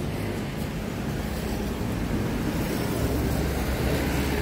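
Steady rumble of road traffic with a low hum, growing a little louder about three seconds in.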